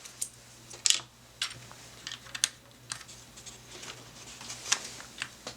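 Irregular plastic clicks and clacks of keycaps being pulled off and pressed onto the Cherry MX Brown switches of a Filco Majestouch 2 Ninja mechanical keyboard, about a dozen in all at uneven spacing, a few much louder than the rest.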